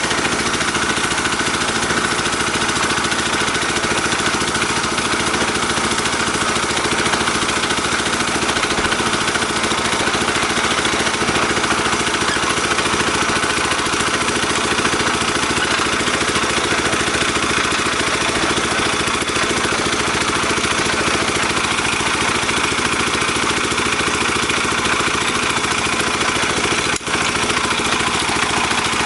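Engine of a small water-well drilling rig running steadily, with a momentary break near the end.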